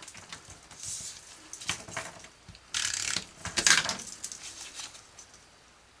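Cardstock pieces being handled, with several short scratchy runs of a tape-runner adhesive rolled onto paper, the longest and loudest about three seconds in.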